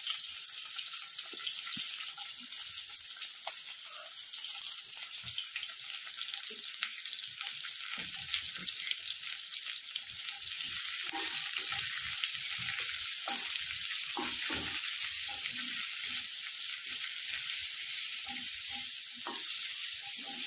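Freshly added chopped red onion sizzling in hot oil with cumin seeds and green chillies in a stainless steel frying pan: a steady frying hiss. From about eight seconds in, a spatula stirs the onions, knocking and scraping against the pan.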